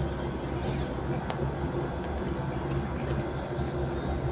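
Steady background hum and hiss of room noise, with a single faint click about a second in.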